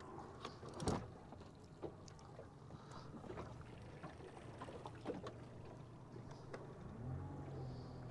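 Outboard motor running steadily at low trolling speed, faint, with a few light knocks, the loudest about a second in. Near the end the motor's pitch rises a little and holds.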